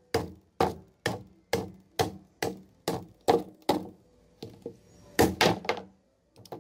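A wooden baton knocking on the spine of a Wolf 5.56 fixed-blade neck knife, driving it down into the end of an upright stick of wood: nine evenly spaced knocks, about two a second, then after a short pause a quick run of three more.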